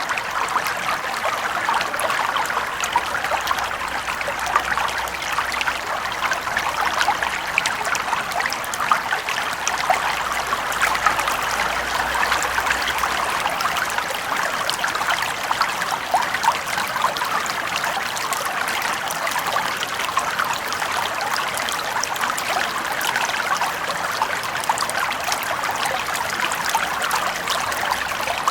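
Small brook flowing steadily: continuous trickling and rippling water, even in level throughout.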